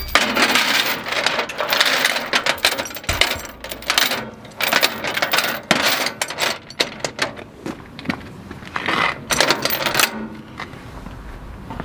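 Steel chain being piled by hand into a steel storage box: a fast, dense run of metallic clinking and rattling as the links fall against each other and the box, dying down about ten seconds in.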